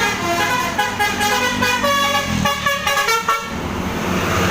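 Bus's basuri (telolet) musical air horn playing a quick run of stepping notes, cutting off about three and a half seconds in. A low engine hum runs underneath.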